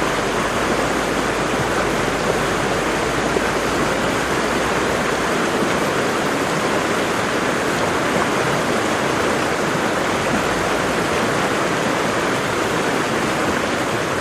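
Ruiru waterfall rushing: a steady, loud rush of falling water. A low rumble underneath stops about five seconds in.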